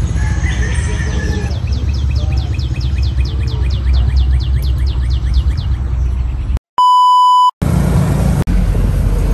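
A steady low rumble with a fast run of high chirps, about five a second, is cut off by a loud pure beep lasting under a second about seven seconds in. After it comes the steady road rumble of a moving car heard from inside the cabin.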